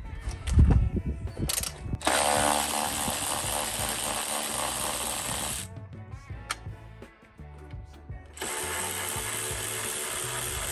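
Ryobi cordless 3/8-inch ratchet with a T30 Torx bit running in two bursts of about three and a half seconds each, backing out screws, over background music.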